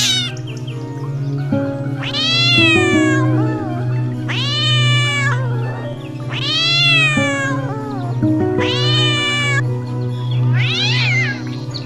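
A cat meowing five times, long drawn-out meows about two seconds apart, over steady background music.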